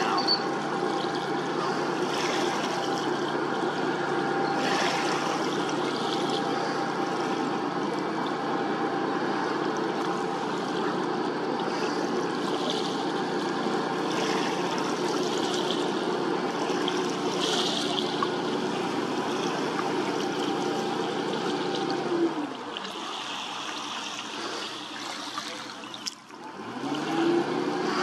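Tugboat's engine running steadily under load while towing a grounded schooner free, with a steady rush of churning water. About 22 seconds in the engine note drops and quietens, then climbs again near the end as it revs back up.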